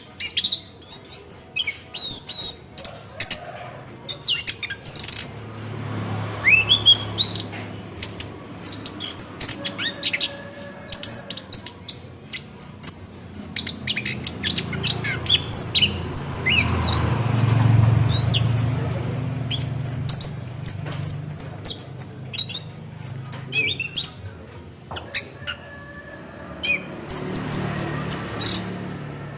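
Orange-headed thrush singing a continuous, rapid rolling song of quick, varied high whistles and chirps with hardly a pause. A low rumble swells in the background a few times.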